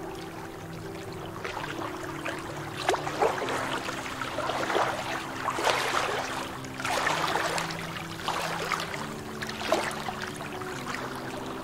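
Small lake waves lapping and splashing against shoreline rocks, in irregular surges every second or two, over soft background music with long held notes.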